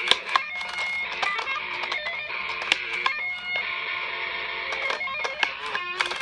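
Music with plucked, guitar-like notes and many sharp clicks.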